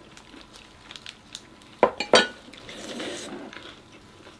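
Dishes and cutlery clinking at a meal table, with three sharp clinks close together about two seconds in.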